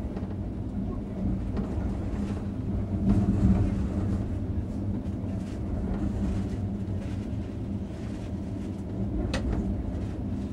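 Moving passenger train heard from inside a compartment coach: a steady rumble of wheels on the rails, louder for a moment about three seconds in, with a single sharp click near the end.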